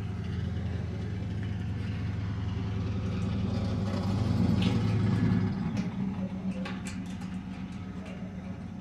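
A steady low engine-like hum that grows louder and stops about five and a half seconds in. After it, faint light metallic clicks of a pick raking in a lock.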